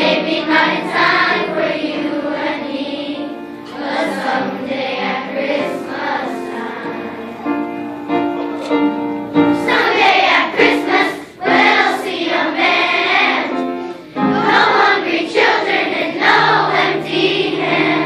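A children's choir singing together, in phrases of held notes with short breaths between them.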